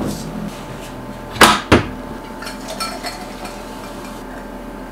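Plastic lid of a Setpower RV60D 12 V portable fridge-freezer shut with two sharp knocks in quick succession. Faint handling sounds follow as a drink is poured into a glass.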